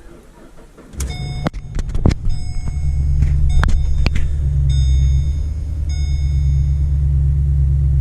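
Holden VE Commodore SS's 6.0-litre V8 cranked and started: it catches about a second in and settles into a steady low idle that is a little shaky. The engine has a misfire from a broken pushrod, though right after start it sounds fairly normal. A high beeping tone comes and goes several times over the idle.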